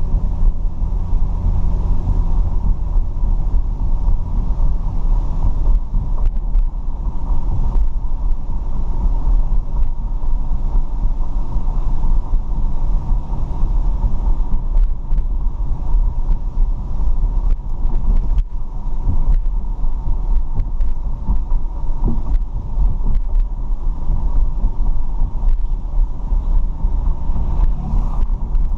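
A car driving, with a steady low engine and road rumble and a few faint knocks.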